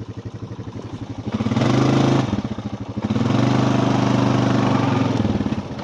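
A small farm vehicle's engine speeding up about a second and a half in, easing off briefly, then running steadily at a higher speed.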